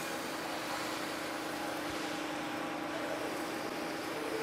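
Waterjet cutting machine's high-pressure pump running in low pressure with water going through the cutting head, a steady hum under an even hiss. This is the start of purging air out of the high-pressure line through a newly changed orifice.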